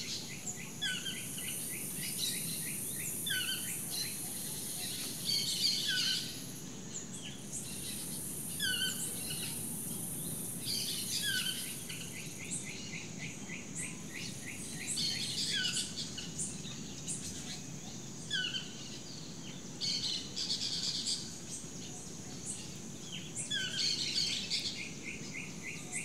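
Rainforest ambience: a bird repeats a short falling call about every two to three seconds over a steady high-pitched insect drone.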